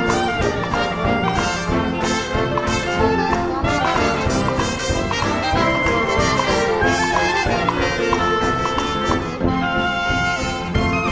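Traditional New Orleans jazz band playing instrumentally, with cornet and trombone prominent over a steady beat, heard with natural concert-hall ambience.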